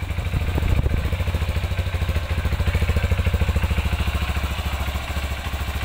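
Honda CRF150L's single-cylinder four-stroke fuel-injected engine idling with an even, steady beat, getting a little louder soon after the start and easing back near the end.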